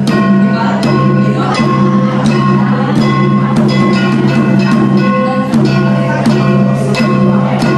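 Percussion music: a wooden knock and a bell-like ringing strike about once a second, over a steady low drone.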